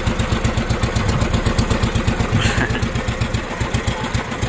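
Small engine of a motorized outrigger boat (bangka) running steadily under way, with a fast, even putter of about six beats a second.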